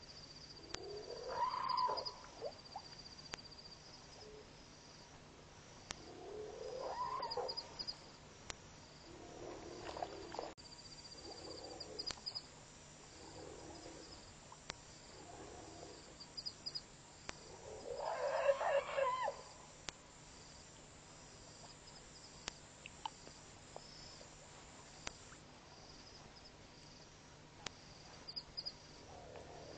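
Angry elephant calls with growling, which may be a bull elephant in musth: about seven calls of one to two seconds each, spaced apart, the loudest about two thirds of the way through.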